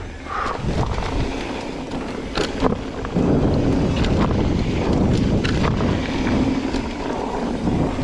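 Mountain bike riding fast down a dirt singletrack: tyres rolling over loose, sandy dirt with wind rushing over the microphone and the bike rattling and knocking over bumps. The rushing gets louder about three seconds in.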